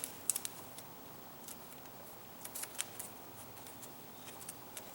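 Vinyl electrical tape being pulled off and wrapped around a wire, heard as faint scattered crackles and small clicks.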